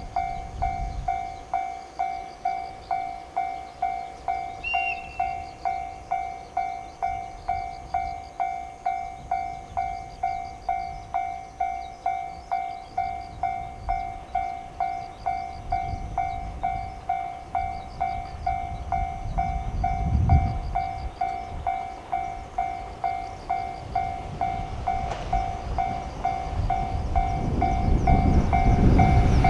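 Japanese level-crossing warning bell ringing in an even rhythm of about two strokes a second, each stroke one bright repeated tone. Near the end the rumble of an approaching train rises under it.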